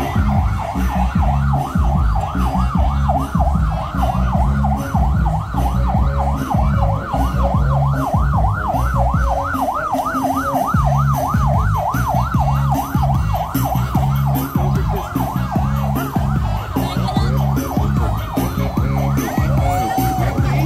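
Siren sounding a fast yelp, its pitch sweeping up and down about three or four times a second without a break. A heavy low rumble runs underneath.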